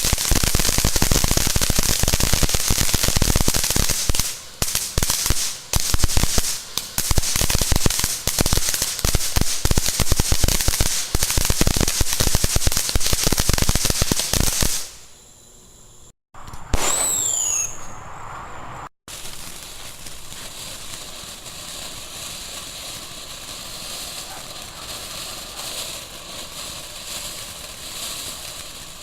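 A long string of firecrackers going off in rapid, crackling pops for about fifteen seconds. After a short break comes a brief falling whistle, then a quieter steady background hiss.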